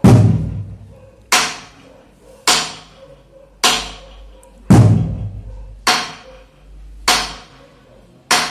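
Slow, steady percussion beat accompanying a traditional dance: sharp ringing strikes about once a second, every fourth one with a deep drum boom.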